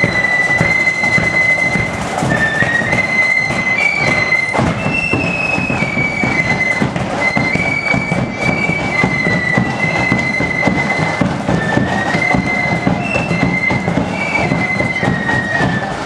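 Marching flute band playing a march: flutes in unison carry a high, stepping melody over side drums and bass drum.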